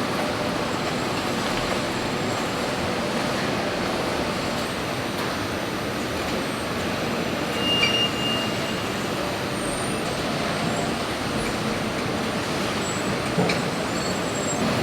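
Steady running noise of heavy machinery, with a short high beep about eight seconds in and a knock near the end.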